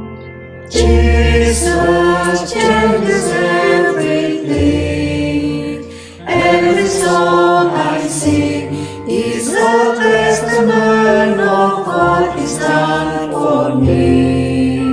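Worship music: a choir singing over sustained low bass notes that change every two seconds or so.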